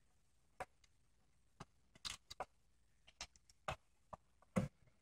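Scattered faint clicks and light taps, irregular and about a dozen in all: a pocket multi-tool knife and hands knocking against the sheet-metal casing of an optical drive while it is being taken apart.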